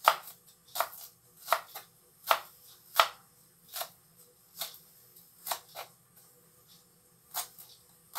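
Kitchen knife slicing shallots on a plastic cutting board: sharp, separate knocks of the blade striking the board, roughly one a second, a few coming in quick pairs, with a pause of over a second near the end.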